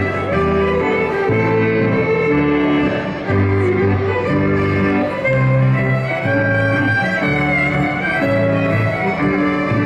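Fiddle-led dance band playing a tune for the dancing, with held string notes over a moving bass line.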